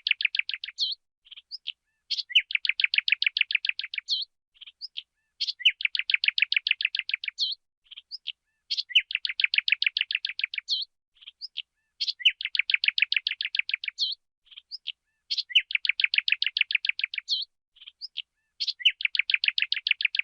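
Sparrow singing: a few short chirps, then a fast, even trill of about a dozen notes a second lasting about two seconds. The same phrase repeats about every three seconds, six times over.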